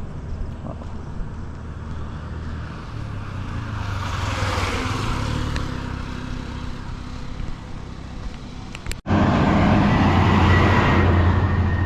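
Road traffic: a vehicle passes about four seconds in. The sound cuts out briefly about nine seconds in and comes back louder, with a steady low rumble.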